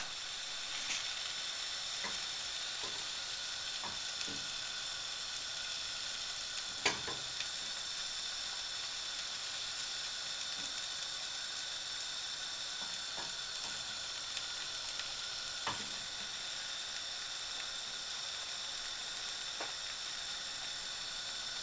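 Egg omelette frying in butter in a pan on high heat: a steady sizzle, with a few light ticks and scrapes of a utensil against the pan, the clearest about seven seconds in.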